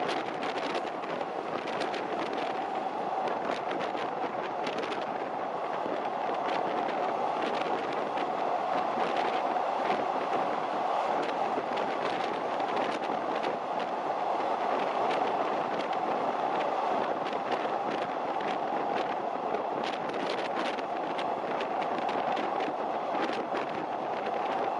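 Passenger train running steadily at speed on the track: an even running noise of wheels on rail, with many sharp clicks and rattles throughout.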